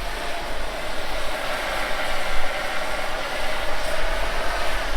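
Motorcycle engine of a motor tricycle idling steadily.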